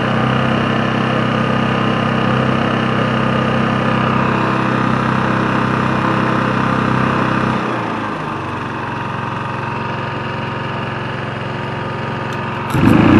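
Shindaiwa EGW151MS engine-driven welder-generator running steadily. About eight seconds in, the engine drops to a lower, quieter speed. Near the end there is a brief loud rise.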